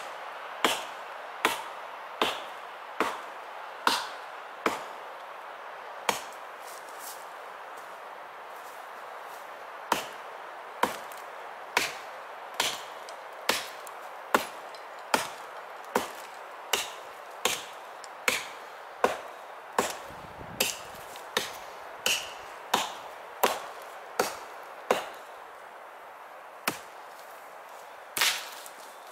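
Gränsfors Bruks Small Forest Axe chopping into a dead log, one sharp knock about every three quarters of a second. The chopping pauses for a few seconds about six seconds in and again shortly before the end, then a couple more blows land.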